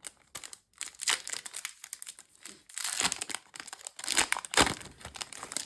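Foil wrapper of a Yu-Gi-Oh! booster pack crinkling and tearing as it is opened: an irregular run of crackly rustles, the loudest about four and a half seconds in.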